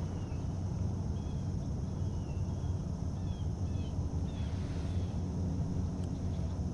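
Open-air lake ambience at dawn: a steady low rumble under a continuous high-pitched drone, with a bird calling in short, repeated chirps through the first two-thirds.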